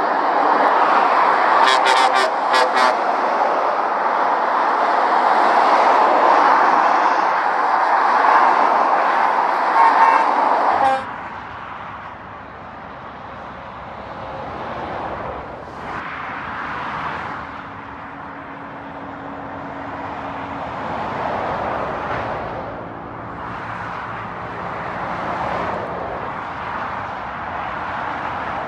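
Lorries and other motorway traffic passing at speed, a loud steady rush of tyre and engine noise. About eleven seconds in it drops abruptly to a quieter traffic noise that swells and fades as vehicles go by.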